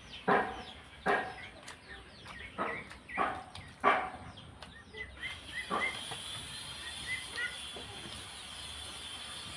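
Six short, loud animal calls, spaced unevenly over the first six seconds, then a run of faint quick chirps. A steady high insect drone runs underneath.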